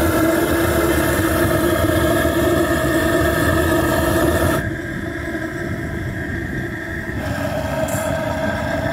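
Home-built steam motorcycle's engine running with a steady pitched drone over fast pulsing. About four and a half seconds in, the sound drops in level and changes character.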